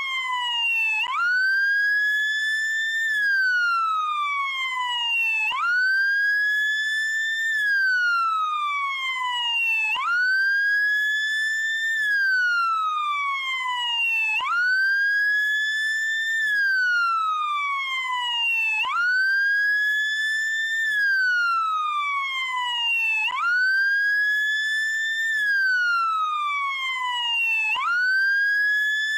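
Police siren on its wail setting: a tone that sweeps quickly up, holds high, then slides slowly down, repeating about every four and a half seconds.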